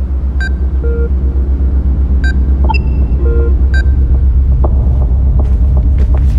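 Film score: a deep bass rumble pulsing quickly and steadily, with a few short electronic beeps and brief soft tones over it.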